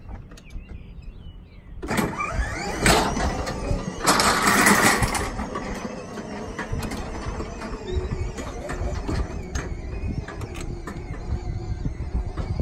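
Electric motors of a children's battery-powered ride-on toy pickup truck whirring as it drives off, with rattles and clicks. It starts about two seconds in and is loudest a couple of seconds later.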